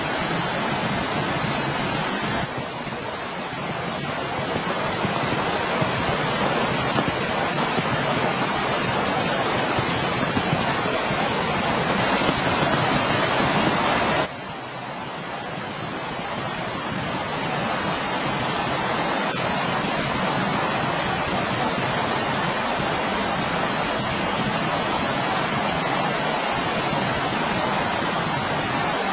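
Steady heavy rain, a dense even rushing hiss. It drops abruptly in level twice, about two seconds in and near the middle, and builds back up after each drop.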